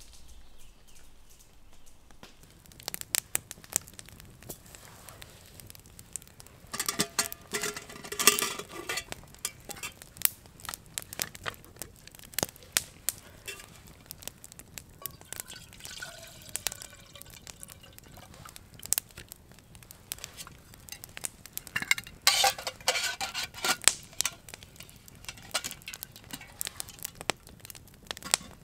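Campfire of split logs crackling, with irregular sharp pops and snaps. Twice there is a longer spell of rustling and clattering as a metal pot and kettle are handled and set on the grill over the fire.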